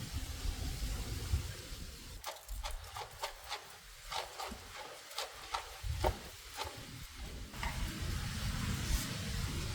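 Wood campfire crackling, with a run of sharp pops and snaps through the middle few seconds over a steady hiss.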